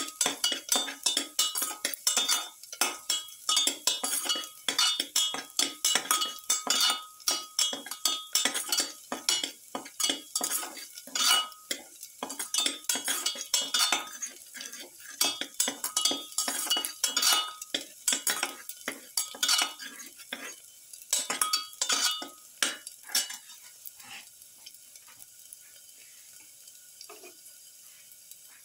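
A perforated steel spatula scraping and clinking against a stainless steel pan as garlic cloves are stirred in hot oil, the pan ringing with each stroke over a light sizzle. The stirring stops near the end, leaving a faint sizzle.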